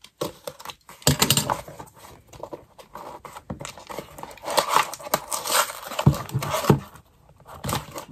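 A parcel's packaging being torn open and crinkled by hand: irregular rustling and ripping with a few sharp clicks.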